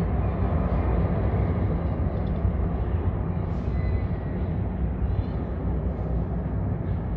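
Steady low rumble of aircraft engines from several planes flying overhead.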